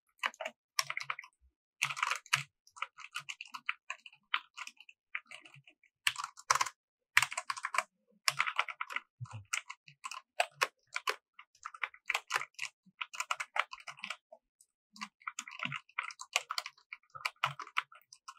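Keys on a budget mechanical keyboard with linear red switches being pressed and released in quick, irregular runs of light clacks, without the sharp click of blue switches.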